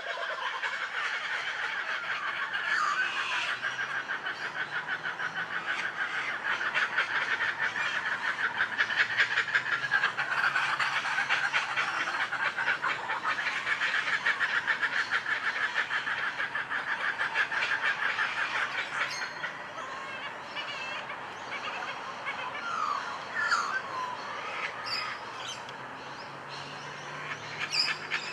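Outdoor animal chorus: a dense, rapidly pulsing call that swells and then fades about two-thirds of the way through, with a few short bird calls over it.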